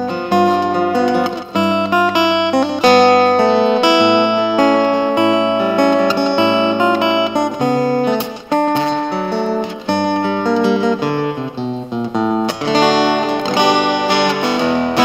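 Acoustic-electric guitar played through a Mr.7 GA-40R 40-watt combo guitar amplifier, fingerpicked as a continuous melody of plucked single notes and chords.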